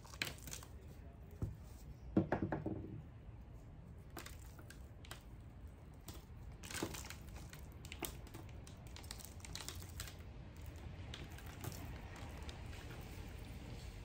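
Hands loosening a dusty miller's root ball and pressing it into potting soil among the leaves of a hanging basket: scattered short rustles and soft crumbling of soil, the loudest about two seconds in.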